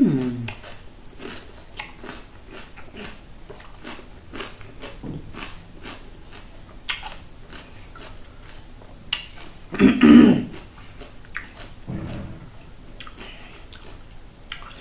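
Close-up chewing of raw cucumber: repeated crisp crunching clicks as the mouthfuls are chewed, with one louder, fuller mouth sound about ten seconds in.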